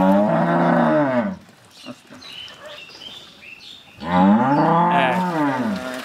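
A cow mooing twice, two long calls that each rise and then fall in pitch; the first ends just over a second in, and the second begins about four seconds in and lasts about two seconds.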